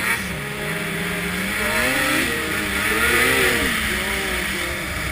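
Ski-Doo MXZ snowmobile's two-stroke engine revving up and down under riding, its pitch rising and falling, with a rushing hiss over it; loudest about three seconds in.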